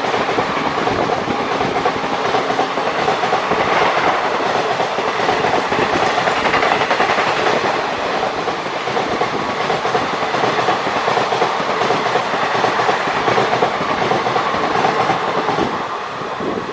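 Indian Railways passenger coaches passing at about 110 km/h, their wheels clattering over the rail joints in a dense, continuous run, in heavy rain. The sound drops a little near the end.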